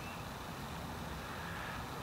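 Steady outdoor city background noise: a low, even rumble with no distinct events.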